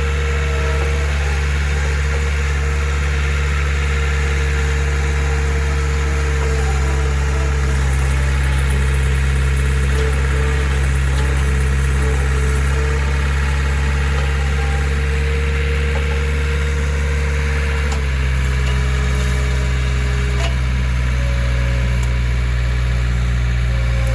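Skid steer engine running steadily. Its pitch drops slightly about 18 seconds in.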